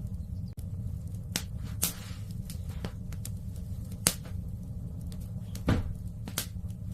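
Wood fire crackling in a fireplace: irregular sharp pops and snaps, the loudest about four seconds in, over a steady low rumble of the flames.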